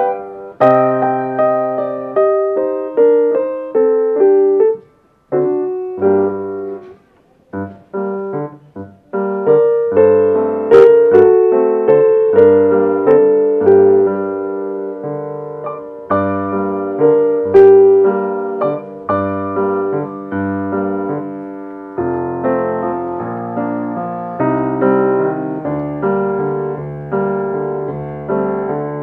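Steinway & Sons concert grand piano played solo in a slow classical piece, single notes and chords each struck and left to ring. There are short, nearly silent pauses about five to nine seconds in, and from about twenty-two seconds the playing moves to fuller, lower chords.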